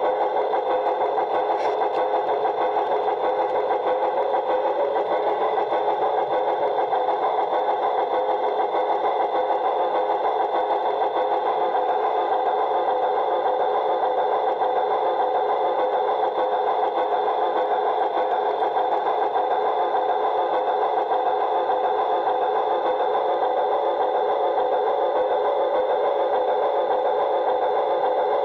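LGB G-scale model Mallet steam locomotive's electric drive motor and gearing whirring steadily as it runs along the track, heard from inside its cab.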